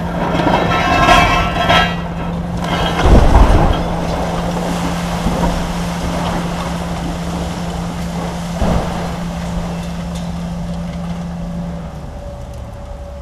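A long-reach demolition excavator's diesel engine drones steadily while its jaw breaks up a concrete building. Early on there is a grinding screech, and about three seconds in a heavy crash and rumble as concrete falls, with a smaller crash later. The engine drone drops away near the end.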